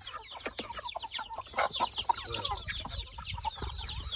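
A flock of chickens clucking and calling, a dense chatter of many short, high calls, with scattered sharp taps among them.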